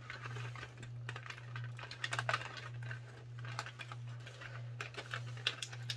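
Fingers picking at and prying open a perforated cardboard door on a chocolate advent calendar, a run of small scratchy clicks and crackles of card. A steady low hum runs underneath.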